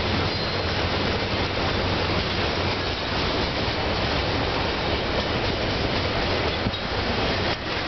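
Norfolk Southern double-stack intermodal well cars rolling steadily past, a continuous noise of steel wheels running on the rails with no locomotive engine heard.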